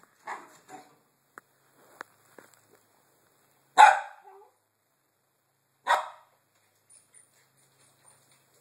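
Pembroke Welsh corgi puppy barking at a baby gate to be let through: a couple of short barks at the start, then two loud single barks about two seconds apart, with a few faint clicks between.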